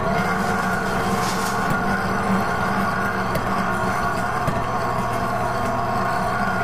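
Electric overhead hoist motor starting abruptly and running steadily with an even hum, hoisting a heavy combat robot on its cable.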